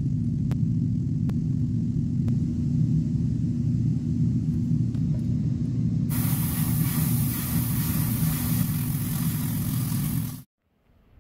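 Steady low motor hum. About six seconds in, a loud airbrush hiss joins it as acrylic clear coat is sprayed. Both cut off abruptly near the end.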